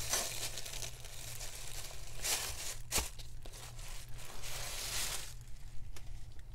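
Crinkling and rustling of plastic stencils and damp coffee-dyed papers being flipped over and pulled apart by hand, in irregular handling noises with one sharp click about three seconds in.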